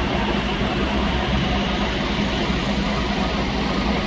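Heavy diesel engine of a Scania aerial platform fire truck idling steadily.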